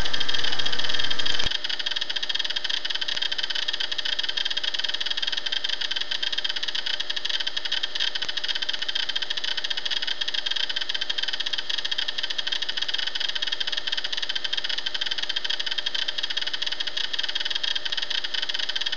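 Steady, even hiss with a faint low hum, after a louder sound cuts off suddenly about a second and a half in.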